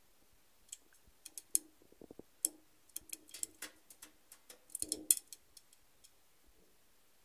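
Budgerigar bathing in a shallow dish of water: an irregular run of small splashes and patters of flung droplets, busiest around the middle.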